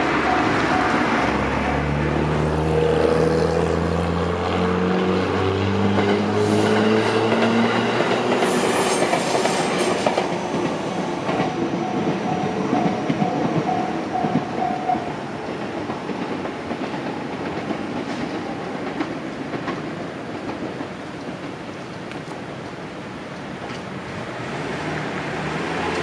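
A Gotemba Line electric train passing over a level crossing, its motors whining upward in steps as it picks up speed through the first nine seconds or so over a heavy rolling rumble. The crossing's warning bell dings in an even repeating beat, stands out again about eleven seconds in, and stops about fifteen seconds in as the train clears.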